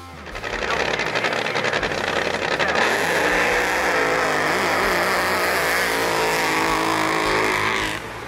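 Supercharged drag boat engine running hard through a pass: a fast crackling firing rhythm for the first few seconds gives way to a steady loud rush. The sound cuts off suddenly near the end.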